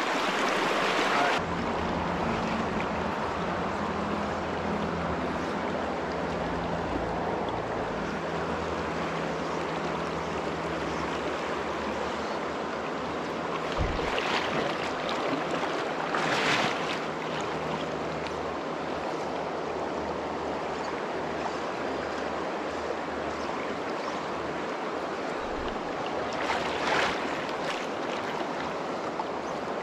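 Steady rushing of a shallow, rocky freestone stream flowing fast around the wading angler, with a few brief whooshes near the middle and near the end.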